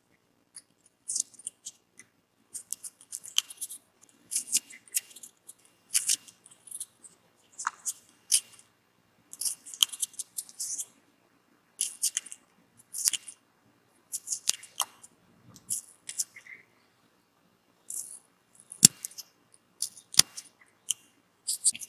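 Thin-bladed carving knife cutting into a raw red radish, shaving off its white flesh in short, high snips about one or two a second, with two sharper clicks about two and three seconds before the end.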